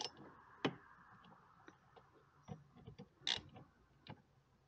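A hand socket ratchet clicking irregularly as the bolts of a car's A/C expansion valve are tightened, with a few louder clicks near the start and about three seconds in.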